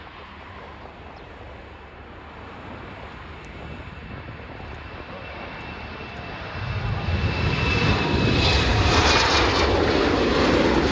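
Twin jet engines of a Lufthansa Regional Embraer E-Jet at takeoff power during the takeoff roll and lift-off. The steady engine noise grows slowly, then turns loud about seven seconds in, with a faint high whine over it.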